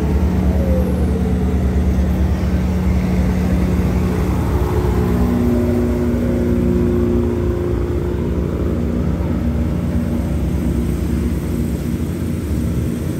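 Diesel train engine running loud and steady as the train pulls away. Its pitch steps up about five seconds in as the throttle opens, and it eases off slightly near the end.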